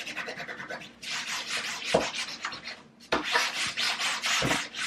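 A damp cleaning rag rubbed quickly back and forth over a kitchen surface in three bouts of scrubbing, with short pauses about a second in and about three seconds in.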